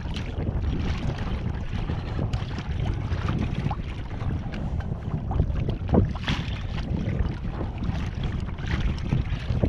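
Wind buffeting the microphone on a fishing kayak, over water slapping against the hull, with a few brief sharper taps; the loudest is about six seconds in.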